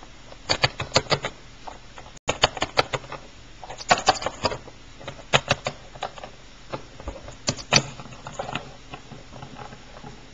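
Small plastic toy figurines clicking and tapping against a hard surface as they are moved by hand: irregular light clicks in quick clusters of a few at a time.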